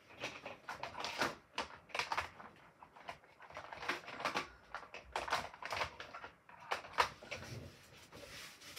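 Plastic watercolour brush pens clicking and clattering against one another as they are sorted through by hand, an irregular run of clicks.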